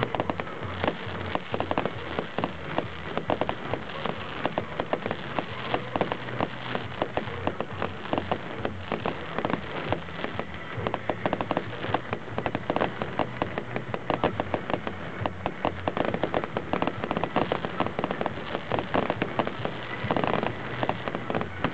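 Fireworks display: many sharp bangs and crackles from bursting aerial shells in quick, irregular succession.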